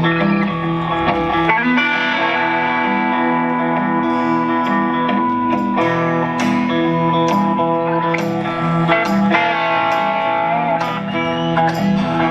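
Live rock band playing through a large PA during a sound check: held electric guitar notes over a repeating low bass line, with a few sharp cymbal-like ticks.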